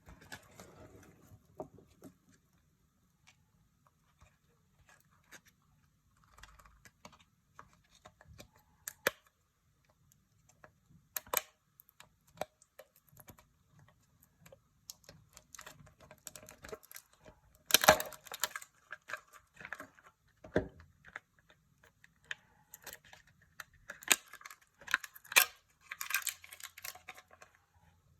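Hands unwrapping surprise eggs: crinkling and tearing of foil wrappers and clicks of plastic pieces, coming in scattered bursts. The handling is busiest about 18 seconds in and again near the end.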